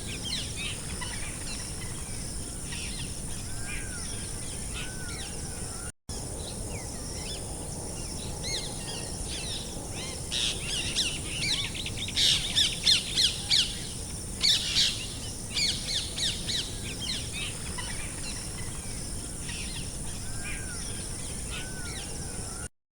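Birds chirping and calling, many short rapid chirps and little rising-falling notes, busiest around the middle, over a steady high-pitched hiss. The sound cuts out briefly about six seconds in and again just before the end.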